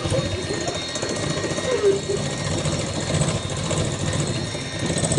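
Electric hand mixer running steadily, its beaters whirring in a metal mixing bowl.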